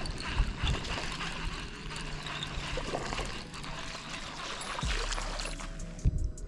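Water splashing and trickling as a hooked bass is fought at the bank, with scattered small clicks and a couple of low thumps near the end.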